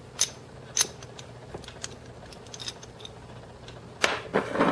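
Small metal clicks and ticks of a Martian Commercial 6.35mm pistol's barrel being twisted and lifted out of the slide, followed near the end by a short, louder scraping rustle.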